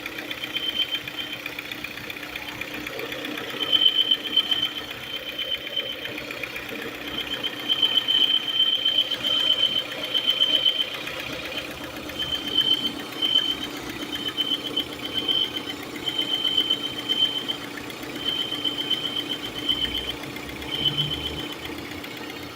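Peugeot 408 engine idling, with a high-pitched squeal that comes and goes in stretches of a second or two, much like a bad pulley bearing. The noise is later traced to a faulty breather in the valve cover.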